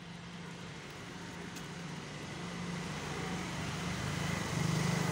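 A motor vehicle engine running with a steady low hum, growing gradually louder and loudest near the end.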